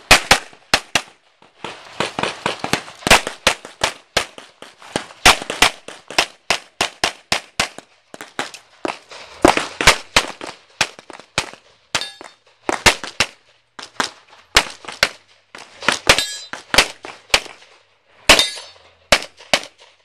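Handgun shots fired in fast strings and quick pairs during a USPSA stage run, with short pauses of a second or so every few seconds as the shooter moves between firing positions.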